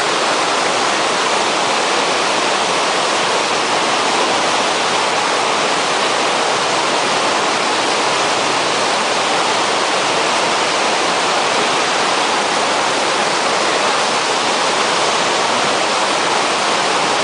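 Waterfall cascading down a rock chute into churning whitewater in a narrow canyon: a loud, steady rush of falling water.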